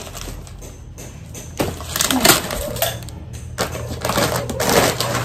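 Paper grocery bag and plastic packaging rustling as items are pulled out, in irregular bursts. It is quieter for about the first second and a half, then busier.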